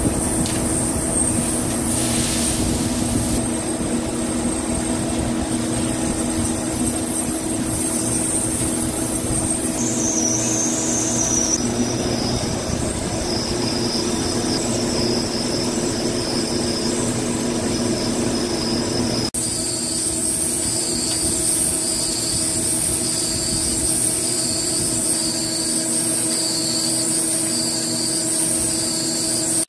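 CNC vertical lathe finish-turning a large forged steel ring: a steady machine hum under a high, thin cutting whine. The whine drops in pitch about ten seconds in, and in the last third it wavers up and down about once a second.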